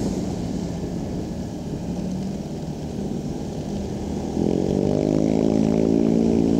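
Motorcycle ride: engine running under steady road and wind noise. About four seconds in, a louder engine drone with a steady pitch comes in.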